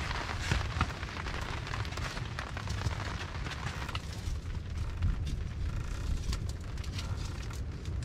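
Wood fire catching in a stone hearth, crackling and popping with many sharp snaps over a steady low rumble. The hissing thins out about halfway through.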